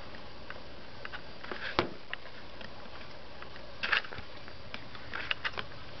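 Handling noise from a handheld camera: a few short clicks and taps from hands on the camera body as it pans, the loudest about two seconds in and a small cluster near four seconds, over the steady hiss of its built-in microphone.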